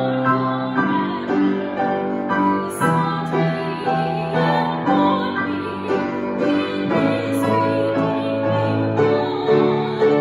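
A woman sings a hymn solo, accompanied by a grand piano.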